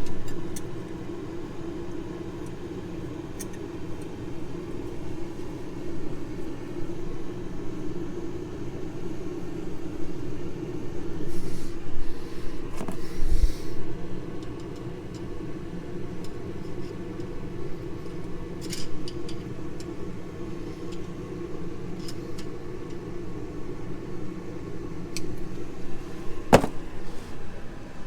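A steady low machine hum with scattered light metallic clinks and one sharp clank near the end, from tools and parts being handled while a main bearing is fitted to the engine block.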